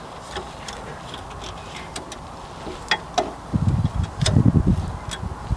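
Plastic zip tie being pulled tight by hand, its ratchet giving sharp scattered clicks. Between about three and a half and five seconds in come louder, low knocks and rumbling from handling.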